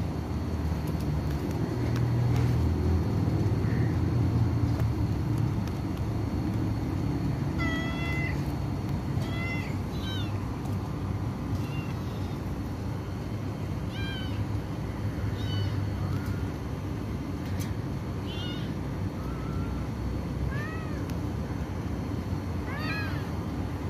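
Cat meowing over and over: about a dozen short, high meows, each rising and falling, begin about a third of the way in and come every second or two. A low rumble is loudest in the first few seconds.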